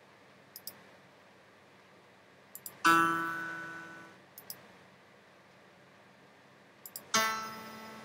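Quick pairs of mouse clicks, each followed by a sampled piano note from a browser piano app. A pair of clicks comes shortly after the start with no note. Another pair comes just before a piano note about three seconds in, and a third just before a brighter note about seven seconds in. Each note dies away over a second or so.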